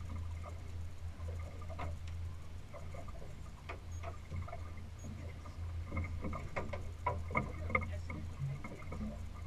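Boat noise at sea: a low, steady hum with scattered sharp clicks and knocks, busiest about six to eight seconds in.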